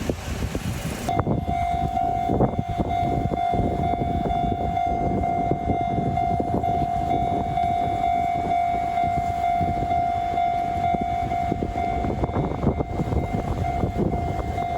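A freight train passing over a railway level crossing: a constant rumble and rapid clatter of wheels on rail. A steady high tone from the crossing's warning signal runs over it.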